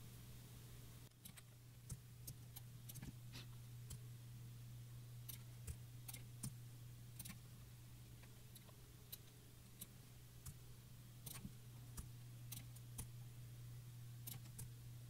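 Faint, irregular clicks of a computer mouse and keyboard, dozens of separate clicks spread unevenly, over a steady low hum.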